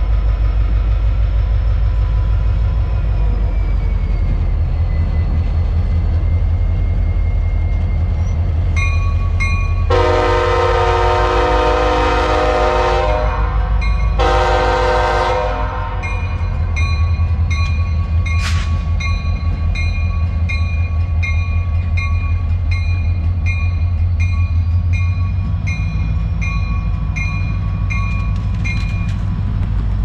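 EMD SD40-2 diesel locomotive and its freight train rumbling past, with two blasts on the locomotive's air horn about ten seconds in: a long one, then a shorter one just after. A bell rings steadily from just before the first blast until near the end.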